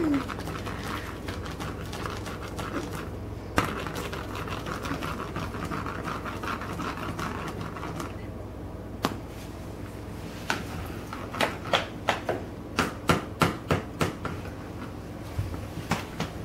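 A cat playing with a dangled toy on a vinyl floor: soft rustling, then a quick irregular string of light taps and clicks, about three a second at the busiest.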